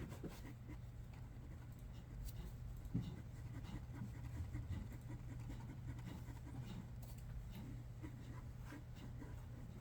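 Pencil scratching on paper in short strokes while sketching, with scattered light clicks, over a steady low hum.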